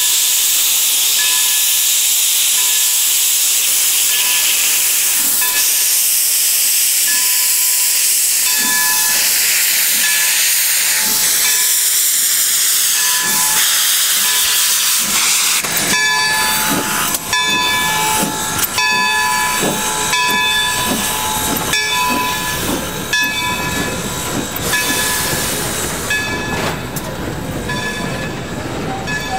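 Baldwin Locomotive Works No. 26 steam locomotive starting a passenger train: a loud steady hiss of steam from its open cylinder cocks, with its bell ringing about once a second. About halfway through the hiss dies away and gives way to the clicking and rumble of the coaches rolling by, the bell still ringing.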